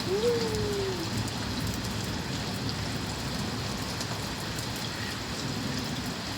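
Steady rain falling, with a short tone that rises and then slides down in pitch near the start.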